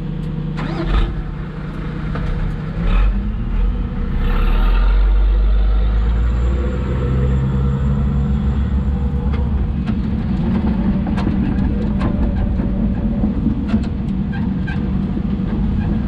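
Hidromek 140 excavator's diesel engine running under hydraulic load while digging and loading, revving up about three seconds in, with scattered knocks and clanks.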